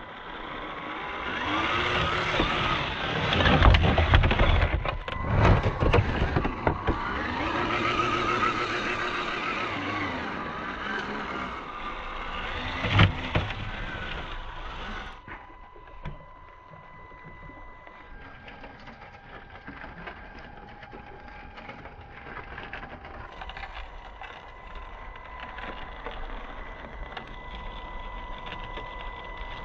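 Small electric motor of a Traxxas TRX4m RC crawler whining, its pitch rising and falling, with sharp knocks and cracks over the first half. About fifteen seconds in it drops to a quieter, steady whine.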